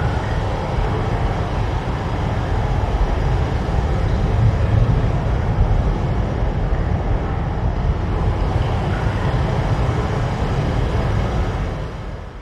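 Cave ambience: a storm and ocean waves outside heard from inside a cave as a deep, steady rumbling noise. It fades out near the end.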